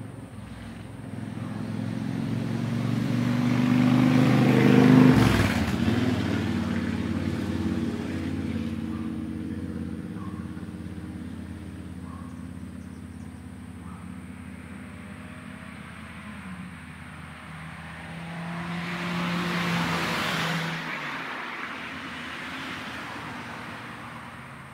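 Motor vehicles passing by. One builds up and passes about five seconds in, its engine note dropping as it goes by, and a second, quieter one passes around twenty seconds in.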